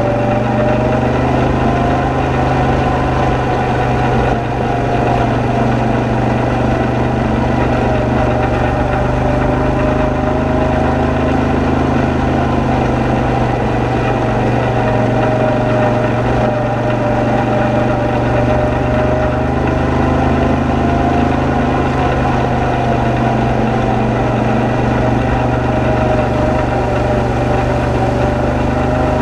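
ATV engine running steadily while driving along a gravel trail, with a whine that wavers slightly in pitch over the drone.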